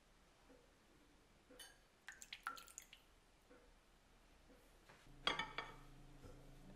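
Metal measuring spoon and wire whisk clinking lightly against a glass mixing bowl: a few soft clinks about two seconds in, and a louder quick cluster of clinks about five seconds in. After that a low steady hum sets in.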